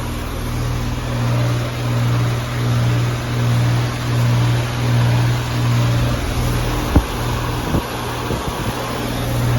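Payne heat pump outdoor unit running in cooling mode: a low compressor hum that swells and fades about once a second under the steady rush of the condenser fan, which runs on a new motor and is working fine. A sharp knock comes about seven seconds in, with a smaller one just before eight seconds.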